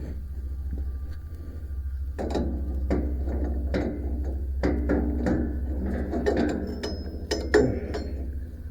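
Irregular metallic clanks and clicks of tools working on a band sawmill's wheel adjustment, over a steady low hum.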